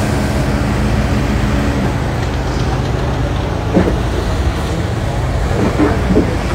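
Excavator diesel engines running, a steady low hum holding a couple of steady tones for the first two seconds, with a few brief louder sounds in the second half.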